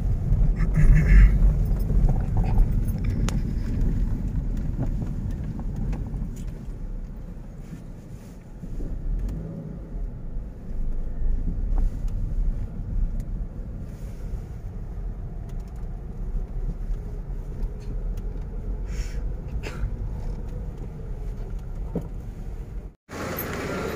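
Low, steady rumble of a car driving slowly, heard from inside the cabin. It stops abruptly near the end.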